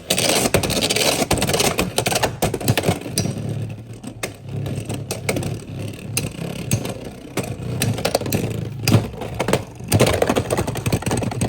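A Beyblade top is launched and spins around a plastic stadium, scraping and clattering with rapid small clicks against the floor and walls.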